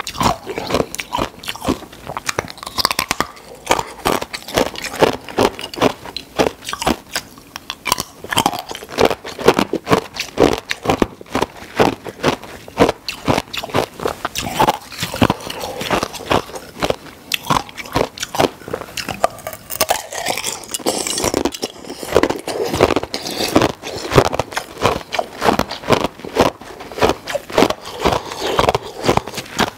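Ice being bitten and crunched between the teeth, close to the microphone: a fast, steady run of sharp cracking crunches with chewing.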